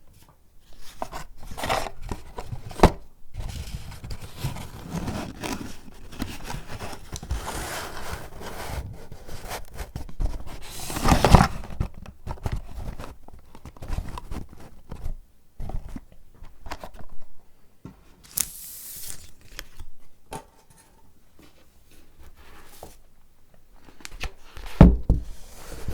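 Close-up paper handling: irregular tearing, crinkling and scraping of paper and packaging, loudest about eleven seconds in, with a quieter stretch near the end.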